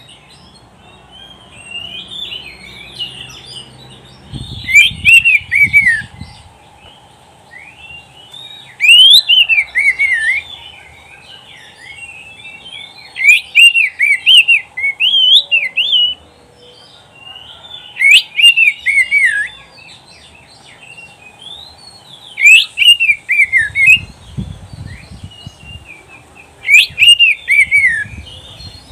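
Oriental magpie-robin (kacer) singing: loud whistled phrases of quick up-and-down notes, six in all, coming every four or five seconds, with softer twittering in between.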